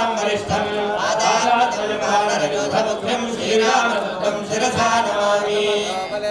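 Male voices chanting ritual mantras together in a steady, continuous recitation.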